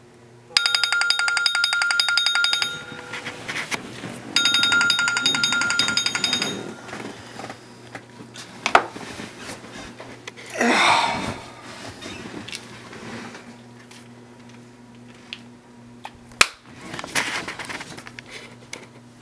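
Smartphone alarm ringing in two bursts of a rapidly pulsing tone, then quieter rustling with a couple of sharp knocks.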